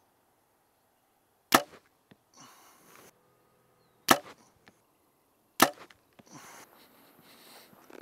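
Compound bow shots: three sharp snaps of the string and limbs at release, the first about a second and a half in, each trailed by a few small clicks. Softer rustling near the end.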